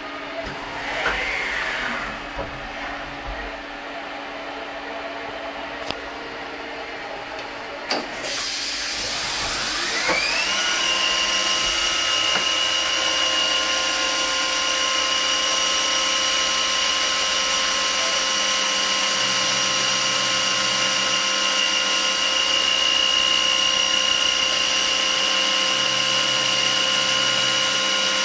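Milling machine spindle spinning up with a rising whine about ten seconds in, then running steadily at speed with a high, even whine while the end mill cuts the ends of black Delrin parts. A steady hiss starts just before the spin-up.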